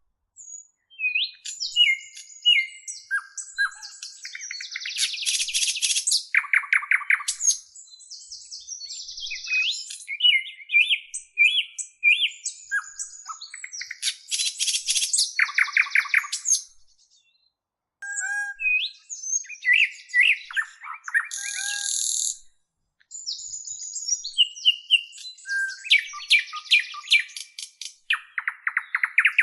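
Several songbirds singing and chirping together in a mix of quick whistled notes, short chirps and rapid buzzy trills. The sound drops out briefly twice, in the second half.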